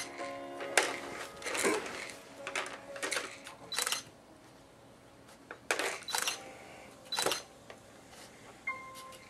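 Irregular sharp plastic clicks and clatters from toys being knocked about on a baby walker's plastic tray. A few held electronic tones sound near the start and again near the end.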